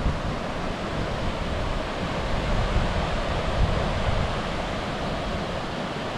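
Steady rush of water from Virginia Falls, a mountain waterfall, heard close by.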